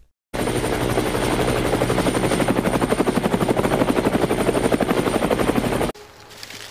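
Helicopter rotor chopping steadily in a fast, even beat. It starts abruptly and cuts off suddenly near the end, like an edited-in sound effect.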